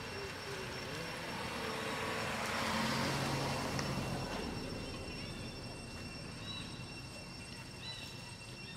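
A vehicle passing by, its noise swelling to a peak about three seconds in and then fading away. A few short chirps come near the end.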